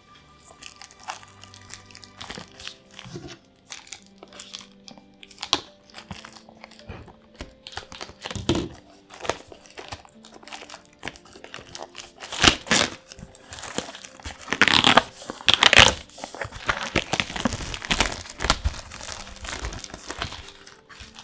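Plastic wrapping on Magic: The Gathering booster packaging being handled and torn open, crinkling in irregular bursts that get louder and busier about halfway through. Faint music plays underneath.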